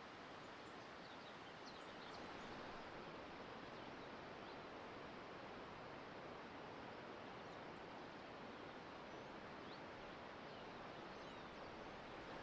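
Faint outdoor ambience: a steady rushing noise, with small birds chirping briefly and intermittently.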